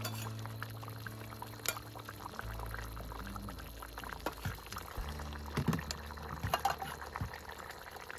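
Braising liquid bubbling in a cast-iron Dutch oven of pork belly, with scattered light clicks of metal tongs lifting the pieces out. Soft background music with held low notes plays under it.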